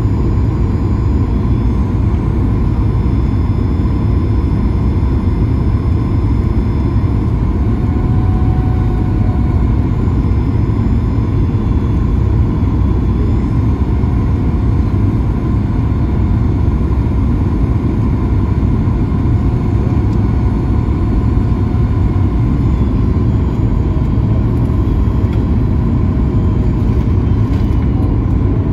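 Cabin noise of a Boeing 737 MAX 9 on final approach: a steady low rumble of airflow and its CFM LEAP-1B turbofan engines, with a faint steady whine above it.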